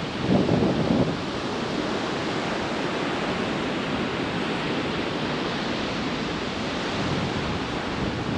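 Ocean surf washing steadily onto the beach, with brief low buffets of wind on the microphone in the first second.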